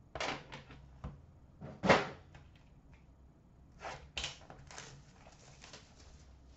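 Hands handling a hockey-card box and pulling a pack out of it: a few short scrapes and knocks of packaging, the loudest about two seconds in, with a cluster around four seconds.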